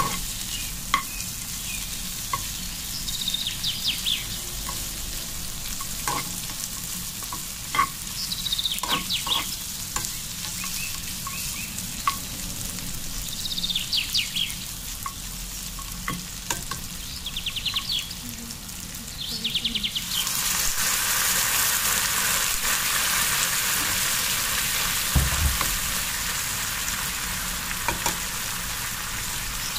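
Chopped dried apricots, butter and cinnamon sticks sizzling in a nonstick frying pan while a spoon stirs them, clicking now and then against the pan. The sizzle gets louder about two-thirds of the way through.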